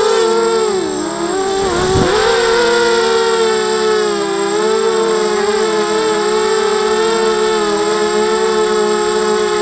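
ZMR 250 mini quadcopter's brushless motors and propellers whining. The pitch dips sharply and swings back up between about one and two seconds in, then holds fairly steady with small wavers as the motor speed changes.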